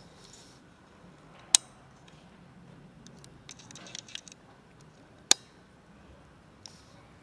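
A cat eating dry kibble from a plastic tub, giving a cluster of small crunching clicks in the middle, with two sharp, loud clicks about a second and a half in and just past five seconds.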